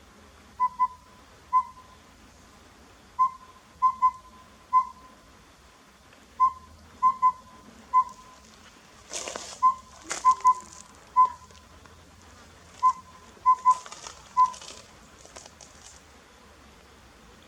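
Collared owlet singing: clear whistled hoots in repeated four-note phrases, a single note, a quick pair, then one more, the phrase coming about every three seconds. Short rustling noises break in around the middle and again near the end.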